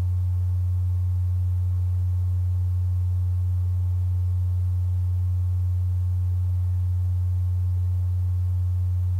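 Steady low electrical hum: one unchanging low tone with nothing else over it.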